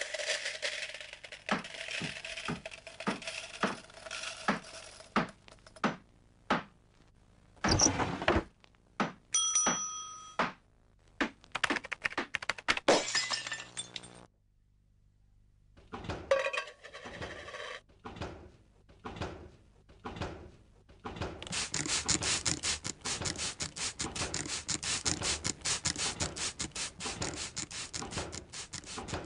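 Scattered sharp knocks and clicks with a brief ringing tone about a third of the way in, a short hush, then a dense crackling rush of running water over the last third.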